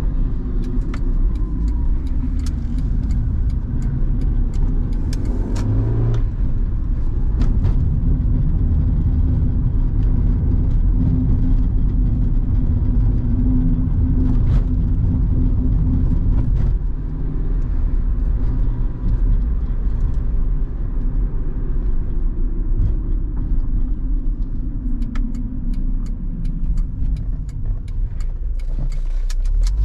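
1997 Honda Civic 1.4i's four-cylinder petrol engine and tyre noise heard from inside the cabin while driving. The engine note rises steadily over the first six seconds and drops sharply, then drops again about seventeen seconds in. Scattered light knocks and clicks run through it.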